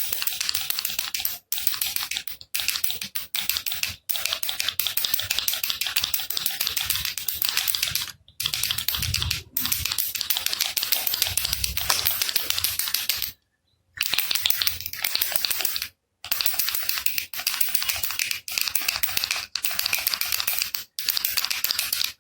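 Baby rattle (jhunjhuna) shaken steadily: a dense, rapid clatter of beads, stopping for brief gaps of silence roughly every one to four seconds.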